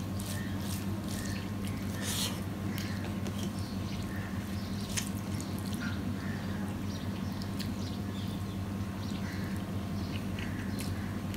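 Fingers mixing rice and fried papaya on a steel plate make soft wet squishes and many small scattered clicks, with eating and chewing sounds. A steady low hum runs underneath.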